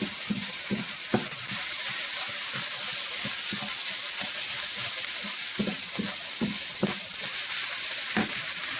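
Onions frying in oil in a hot pan: a steady sizzling hiss, with scattered light knocks of a utensil stirring against the pan.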